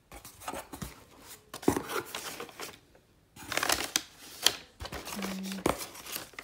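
Brown kraft packing paper rustling and crinkling as hands dig through a cardboard shipping box, in irregular bursts with a few sharp crackles and a short pause about halfway.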